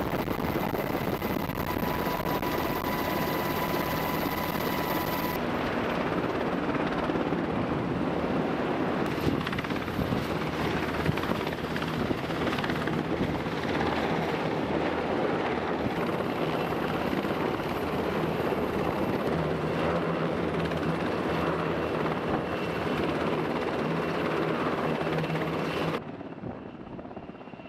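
Navy Seahawk-type helicopter's rotor and turbine noise, a steady heavy whir, changing abruptly several times as the footage cuts between shots. In the last second or two it is much quieter and more distant.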